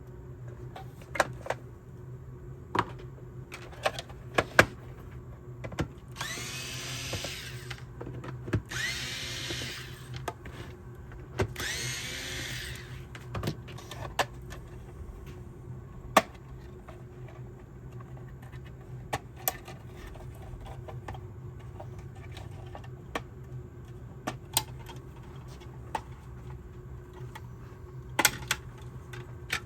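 Hand tools clicking and knocking against a small electronics module on a workbench, with three short bursts of a small power tool running one after another in the first half, over a steady low hum.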